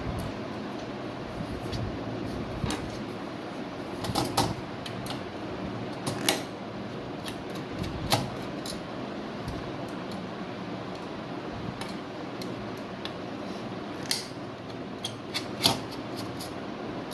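Scattered sharp clicks and knocks of hands handling a desktop PC's metal case and hard drive, over a steady background hum.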